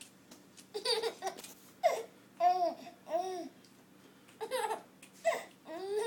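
Baby laughing in a string of short, high squealing bursts, some rising and falling in pitch.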